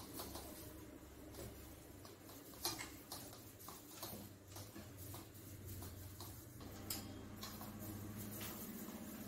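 Faint, irregular clicks and light taps of a wooden rolling pin against a floured countertop as dough is rolled out, with one sharper knock a few seconds in.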